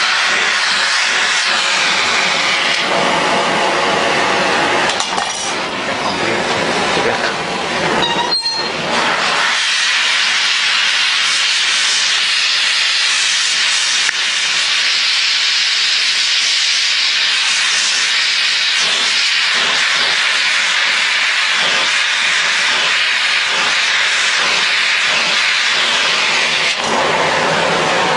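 Gas torch flame hissing steadily as a chrome-moly steel frame tube is heated for brazing, with a brief click about eight seconds in.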